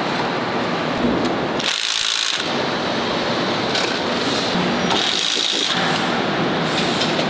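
Steady factory assembly-line din, with two brief higher-pitched hissing bursts about two and five seconds in.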